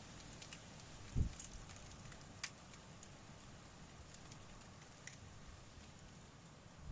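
Hail falling outdoors: a faint, steady patter with a few scattered sharp ticks of stones striking, and a single low thump about a second in.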